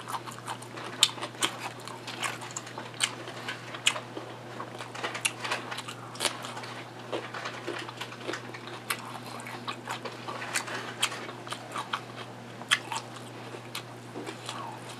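Person chewing crunchy tortilla chips: irregular sharp crunches and crackles.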